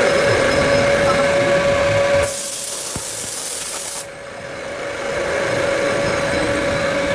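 CNC machine running with a steady hum and a held whine. About two seconds in, a loud hiss takes over for nearly two seconds, then cuts off suddenly, and the machine sound swells back up.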